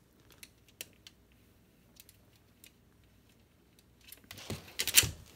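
A Holland Lop rabbit crunching cabbage: a few sharp, scattered crunches. About four seconds in comes a loud burst of rustling and scraping lasting about a second.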